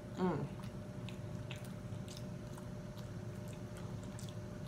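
A person chewing a mouthful of soft corn-masa tamale, with wet mouth sounds and small scattered clicks. Just after the start comes a short hummed 'mm' that falls in pitch.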